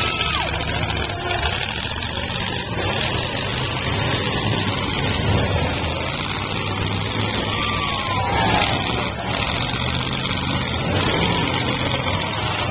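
Several demolition derby cars' engines running and revving at once, a loud, steady, dense noise with brief rising and falling whines now and then.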